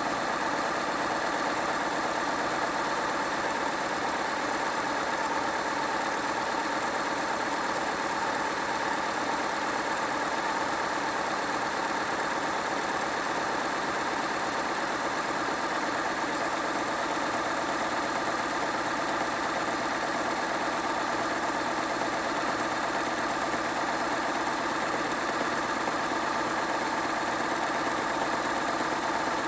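Hoover washing machine running steadily through its rinse and spin programme, a constant motor hum and whine with several steady tones.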